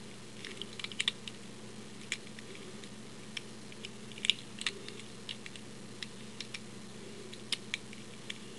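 Scattered small metallic clicks and ticks: an offset diamond lock pick and tension wrench working the pin tumblers inside an old Yale lock. The clicks are sparse and irregular, over a faint steady hum.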